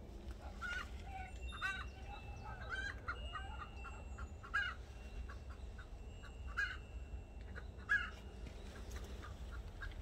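Birds calling in the background: short harsh calls about once a second, some as quick rattling runs, with a few thin whistled notes between them.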